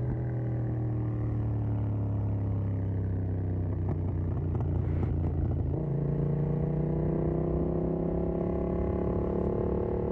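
Yamaha MT-07's parallel-twin engine through a Mivv GP Pro stainless exhaust, heard from a phone in the rider's back pocket while riding. Revs sink slowly for about six seconds, jump up sharply, then climb slowly as the bike pulls again.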